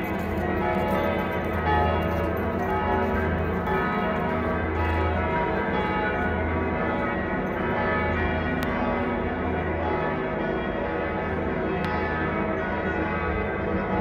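Church bells ringing in a continuous full peal, several bells overlapping into one sustained wash of tones, with a deep low tone swelling and fading underneath.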